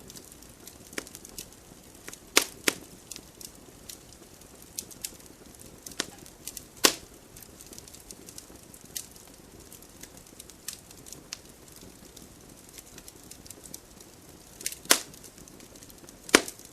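Campfire crackling: a continual scatter of small irregular snaps and pops, with a few much louder pops standing out, over a faint low hiss of the burning fire.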